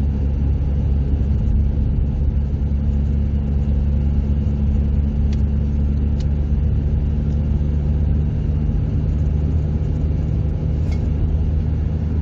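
Mercedes-Benz B-Class car driving at a steady speed, heard from inside the cabin: a constant low drone of engine and road noise, with a few faint clicks.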